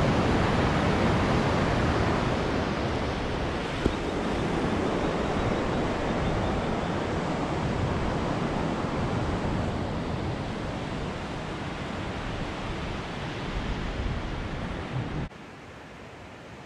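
Rushing mountain river running high with snowmelt: a steady rush of white water, mixed with wind on the microphone. About fifteen seconds in it cuts off abruptly to a much quieter steady hiss.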